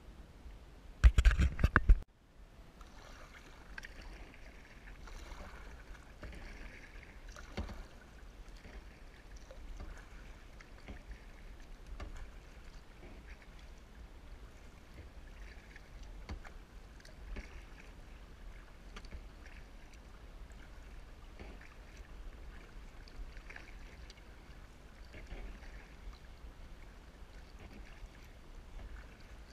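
Kayak paddling: the paddle blades dip and splash on alternate sides every second or two, with water dripping off the blades and trickling along the plastic hull. About a second in, a short loud rumbling burst hits the camera microphone and cuts off suddenly.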